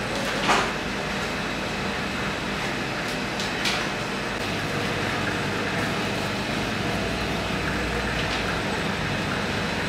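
Steady mechanical hum of kitchen machinery, an electric dough sheeter's motor or the extraction fan, with a light knock about half a second in and another near four seconds.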